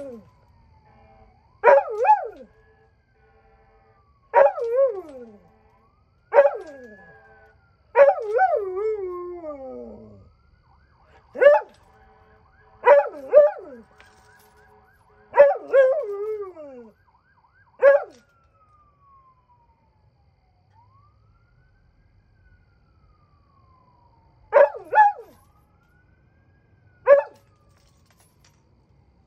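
A dog howling in a string of short howls that fall in pitch, with one longer howl about eight seconds in and a last few near the end. Faintly behind them, a distant siren wails slowly up and down, and the dog is howling along with it.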